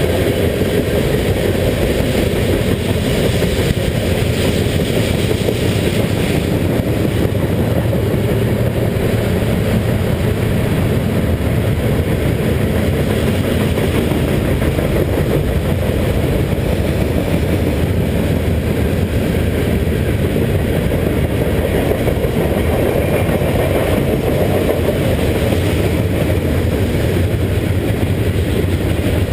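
Steady wind rumble on the microphone of a camera riding along on a moving bicycle.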